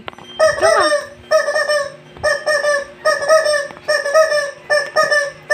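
Loud, repeated high-pitched squeaks, about two a second, each a short steady-pitched note, made to catch a dog's attention and get it to look at the camera.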